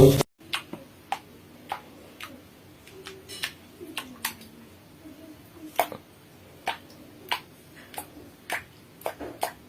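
Light, sharp clicks at irregular intervals, about one or two a second, over faint room tone.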